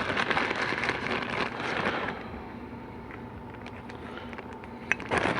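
Rustling and light clicking as parts and tools are handled on a workbench for about two seconds, then a quieter stretch with a faint steady hum and a single click near the end.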